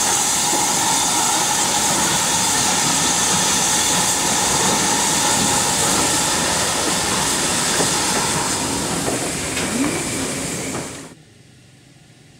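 GWR Collett 2251-class 0-6-0 steam locomotive hauling coaches, with a loud, steady hiss of escaping steam over the rolling of the train. The sound cuts off abruptly about eleven seconds in, leaving only a faint background.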